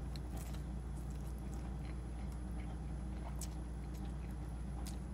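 A man eating ramen noodles: chewing and drawing noodles into his mouth, with a few short wet mouth clicks, over a steady low hum.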